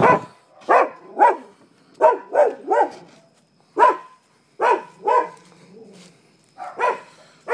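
Dogs barking repeatedly: about a dozen short barks in quick pairs and threes, with pauses of about a second between the groups.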